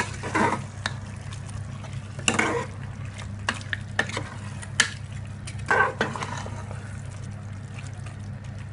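Metal spoon stirring a thick, wet chicken, tomato and yogurt masala in a pressure cooker pot: a few wet scraping stirs and sharp clicks of the spoon against the pot, over a steady low hum.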